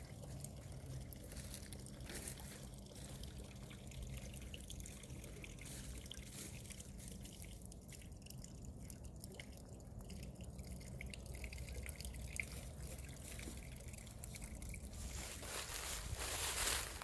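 Water trickling and dripping from a spring fountain, a faint steady flow with many small drips. A louder rustling noise builds near the end.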